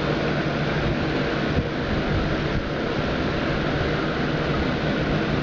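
Steady background room noise: a low mechanical hum with a hiss, unchanging throughout.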